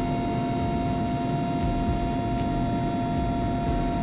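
Helicopter in flight: a steady engine whine over a low rumble.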